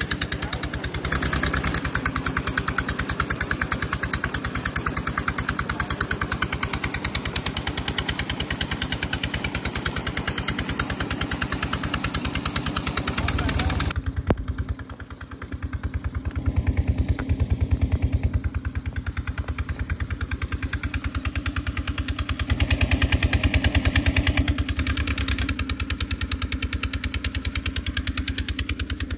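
An engine running steadily at idle with an even, rapid firing beat. It dips briefly about fourteen seconds in, then carries on.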